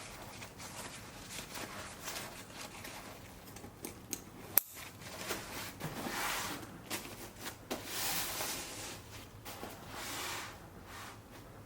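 Backpack fabric rustling in swells as the roll-top is rolled down and handled, with one sharp click about four and a half seconds in, fitting the Duraflex side-release buckle snapping shut.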